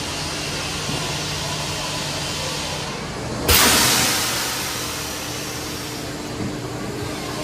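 Compressed-air paper airplane launcher firing: a sudden loud blast of air about three and a half seconds in that fades out over a second or so, over a steady hiss and hum.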